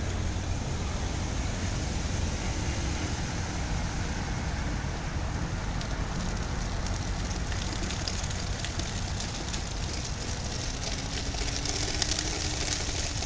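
Steady outdoor background hiss, with a few faint ticks in the second half.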